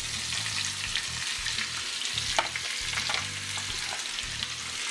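Thin-sliced ribeye steak sizzling as it hits hot oil in a frying pan, a steady hissing sizzle with scattered clicks and scrapes as the meat is pushed off a plate with tongs, one sharper click about halfway through.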